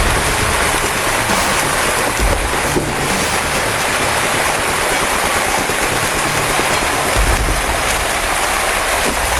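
Steady rushing, water-like noise of a fishing vessel at work, with a low engine rumble that swells briefly about two seconds in and again for the last couple of seconds.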